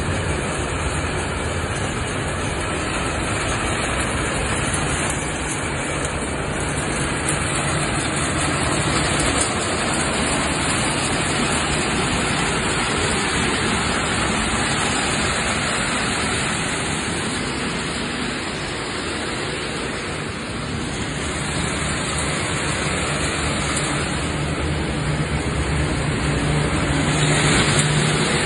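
Nut hulling line running: steady, loud machinery noise from its motors, belt conveyors and hulling machine, with a low hum that grows louder near the end.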